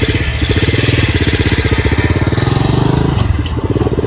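Gas-Gas Gorilla 110 mini bike's 110 cc engine running close by and pulling away, its revs climbing and then dipping about three seconds in.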